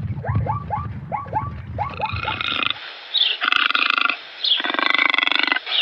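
Zebra calling: a run of short, repeated falling yelps over a low rumble. From about two seconds in, a harsh, rasping growl takes over in long pulsed stretches.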